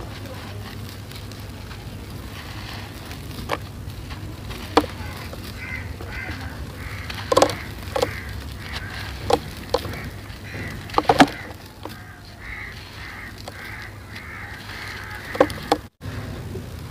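Dry, gritty sand-cement ball crushed and crumbled by hand, with sharp cracks as chunks break off, over a steady low hum. Bird calls repeat in the background.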